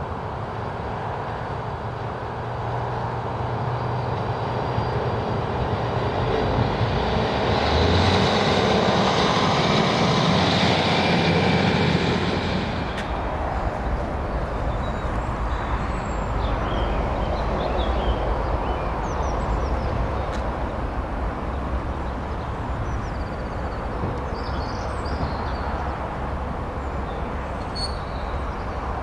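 Diesel multiple-unit passenger train approaching and passing, its engine and wheels growing louder for about twelve seconds, then cutting off abruptly. A steady low rumble follows, with faint high chirps.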